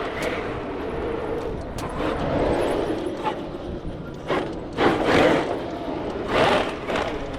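Large 8S electric RC monster truck running, its motor, drivetrain and tires making a steady noise that swells in three loud bursts of power about midway through and near the end.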